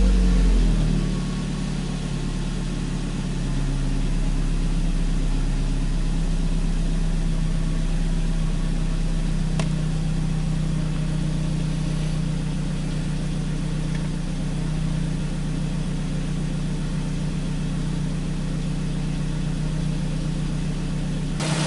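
Ford Focus engine settling from raised revs back down to idle about a second in, then idling steadily. It is running cleanly after the misfire repair, with only a slightly high fuel trim at idle that is suspected to be a small vacuum leak.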